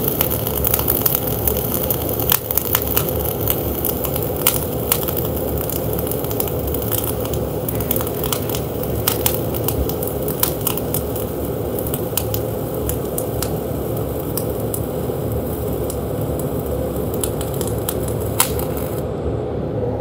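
Gas-shielded flux-cored welding arc, Bohler Diamond Spark 52 RC wire at 22.5 volts, crackling steadily with frequent sharp spatter pops as a fill pass is laid in a beveled steel joint. The arc stops about a second before the end.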